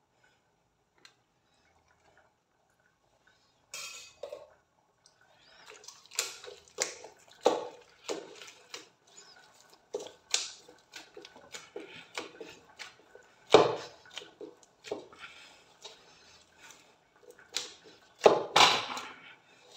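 A hand kneading soft rice-flour dough in a metal bowl, starting about four seconds in: irregular wet squelches of the dough with sharp knocks against the bowl, the loudest near the end.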